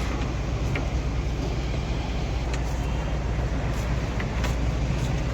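Steady low hum of a car, with a few light, sharp clicks scattered through it.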